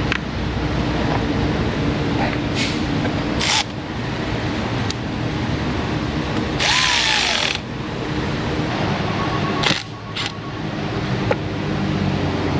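Metal hand tools clicking and clinking on a car battery terminal over a steady machine hum, with a short loud hiss about seven seconds in.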